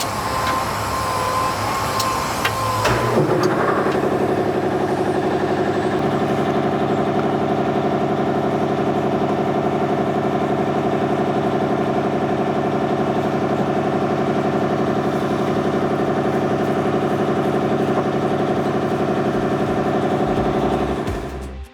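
An excavator's diesel engine starts about three seconds in and then idles steadily. Before it starts, a steady electronic warning tone sounds.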